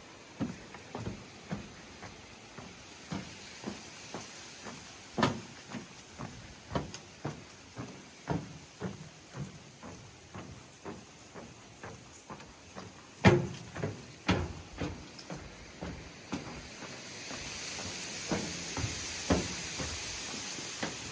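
Footsteps at a steady walking pace on a trail footbridge, each step a short knock, with one heavier knock about two-thirds of the way through. A high hiss rises near the end.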